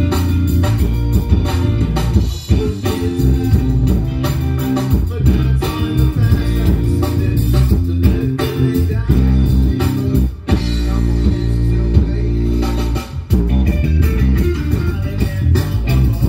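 A live band playing: electric guitar and bass guitar over a steady beat, with two short breaks in the playing about ten and thirteen seconds in.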